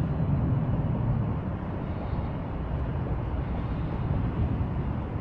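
Steady low rumbling noise with no distinct tones or knocks.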